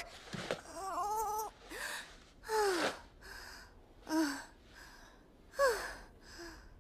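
A young girl's voice panting and gasping, with short strained whimpers, some falling in pitch, spaced about a second apart: breathless exertion and distress.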